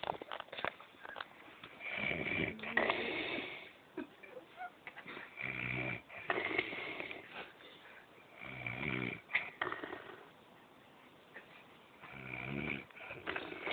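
A person snoring in sleep: four rattling snores, one every three to four seconds, with small clicks between them.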